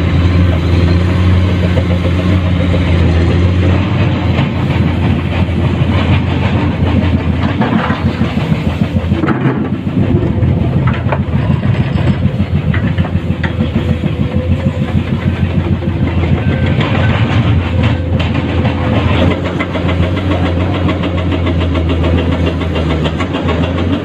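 Komatsu PC210-10 excavator's diesel engine running steadily. Through the middle its note turns rougher and busier as it works, with scattered knocks and clatter.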